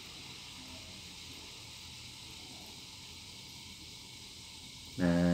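Steady faint fizzing hiss of baking soda and citric acid reacting in a glass of water, bubbles streaming up continuously. A man's voice starts near the end.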